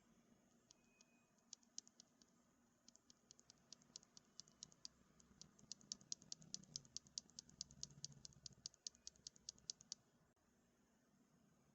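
Keystrokes on a CIDOO V65 mechanical keyboard fitted with CIDOO Mint switches. A few scattered key clicks come first, then a quick, even run of typing at about six to seven strokes a second, which stops a little before the end.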